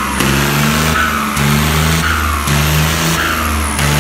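John Deere 5310 tractor's turbocharged diesel engine revved in repeated throttle blips about once a second, the turbocharger whistling and falling away after each blip.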